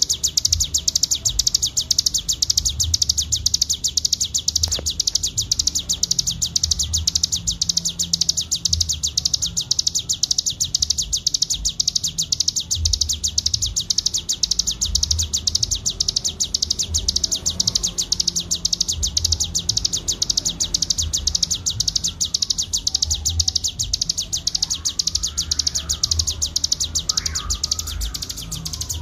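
Ciblek gunung (cigun) songbird singing a continuous, very rapid high-pitched trill without a break: the 'ngebren' rolling song. A low rumble sits underneath, and a few faint gliding whistles come in near the end.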